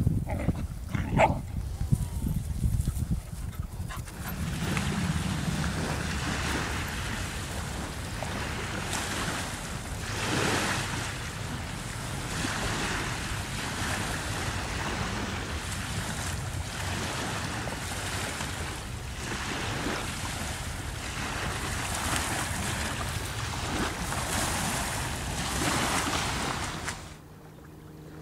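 A dog gives a short, high yelp about a second in. Then a long, uneven rushing noise fills most of the rest and stops suddenly shortly before the end.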